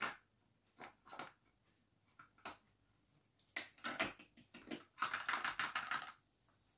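Small objects being handled: scattered light clicks and clatters, then a dense rattle lasting about a second around five seconds in.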